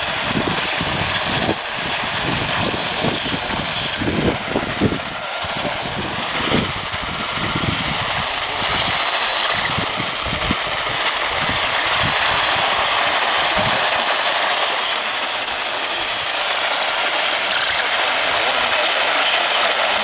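AM radio hiss and static from a weak, distant AM broadcast station picked up at long range. Irregular crackles and pops run through the hiss for the first dozen or so seconds, then die away, leaving a steady hiss.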